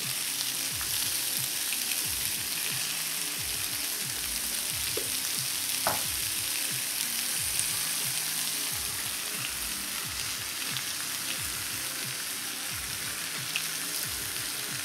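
Diced chicken thighs sizzling steadily in hot avocado oil in a cast-iron skillet, with a few sharp little pops.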